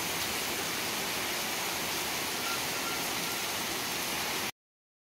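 Heavy rain falling in a steady hiss, which cuts off suddenly about four and a half seconds in.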